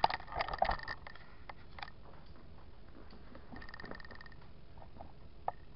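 Thin plastic packaging crinkling and crackling with small sharp clicks as a small toy is unwrapped by hand: a burst of crackle in the first second, then scattered ticks and a second spell of fine rapid crackle a little past the middle.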